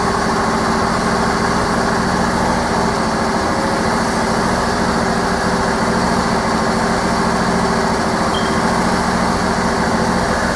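Lawn tractor engine running steadily, driving its alternator to power an inverter as an emergency generator.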